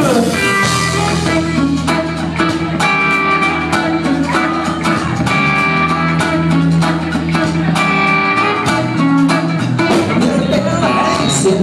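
Live band playing a song's instrumental intro: acoustic and electric guitars over a steady beat.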